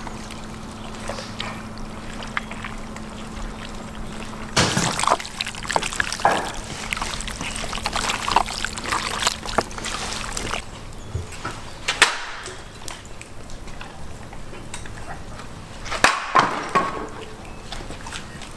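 Raw python meat being stirred with oil and spices, making wet squelches and slaps that come in irregular spells, busiest in the middle and again near the end.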